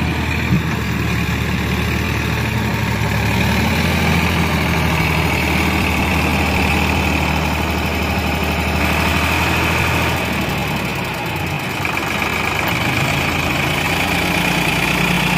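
Sonalika tractor's diesel engine running steadily while it hauls a loaded trolley, its note dipping for a couple of seconds about two-thirds of the way through.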